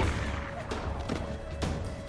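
Film soundtrack: a pistol shot dies away at the start, then a music bed with a low rumble and a steady held tone, broken by three faint knocks.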